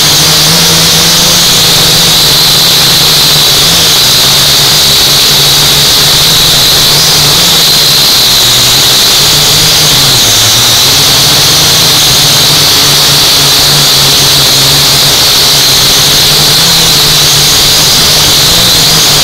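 UDI U818A quadcopter's electric motors and propellers whining steadily, heard up close from the onboard camera. A high whine sits over a lower hum whose pitch wavers and dips briefly about halfway through as the throttle shifts to hold the hover.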